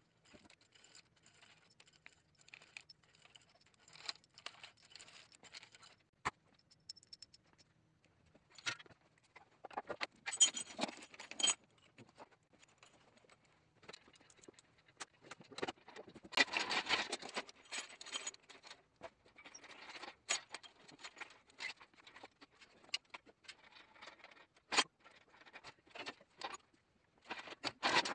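Metal hand tools and loose engine parts clinking, scraping and jangling: scattered irregular clicks and knocks, with louder rattling stretches about ten and seventeen seconds in.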